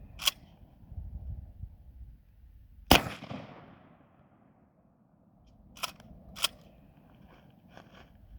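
Kel-Tec KSG 12-gauge pump-action shotgun firing one slug about three seconds in, a loud shot with a long echoing tail. About three seconds later two sharp clacks, the pump being racked back and forward, followed by a few faint clicks.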